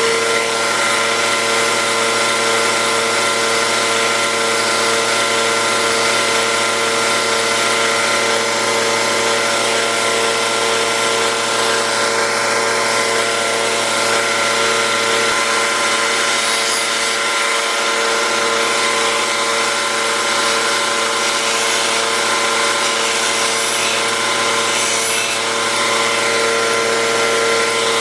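Electric grinder running steadily as a pocket knife's steel blade is ground to reshape it into a sheep's foot profile: a steady motor whine with a bright grinding hiss over it.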